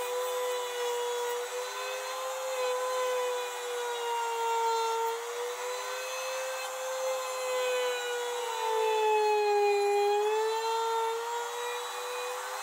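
Compact trim router running in a router sled, its bit planing the face of a wooden slab: a steady high motor whine over a rushing cutting noise. The whine wavers in pitch and sags for a moment about nine seconds in, then recovers.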